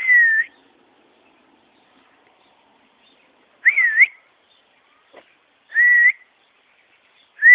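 A person whistling: four short, clear whistled notes, each gliding up and down in pitch, spaced a couple of seconds apart.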